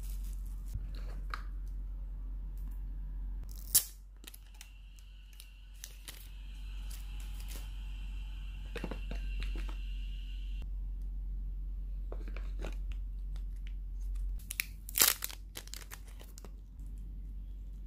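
Bubble wrap and plastic bags crinkling and rustling as a phone, its charger and its cable are handled and unwrapped. There are scattered crackles and a few sharp snaps, the loudest about four seconds in and again near the end.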